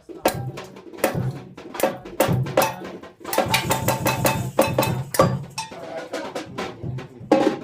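Samba percussion: drums struck in a repeating rhythmic pattern, with deep pitched drum tones under sharper, higher strokes.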